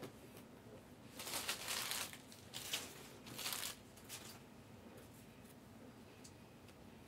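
Trading cards and card packs being handled and stacked on a table: a few short rustles and scrapes between about one and four seconds in, then only faint handling.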